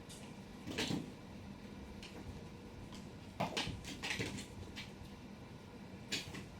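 A handful of short knocks and rustles, like small objects being bumped or pushed around. They come about a second in, in a cluster in the middle, and once more near the end, over a low steady room hum.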